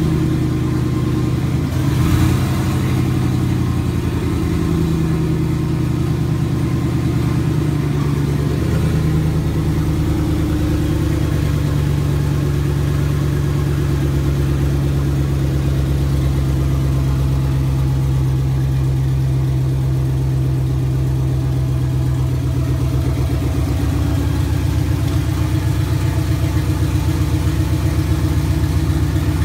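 Turbocharged 4.8-litre V8 of a 2006 Chevy Silverado idling steadily, with a brief rev near the start and the idle speed shifting slightly a couple of times.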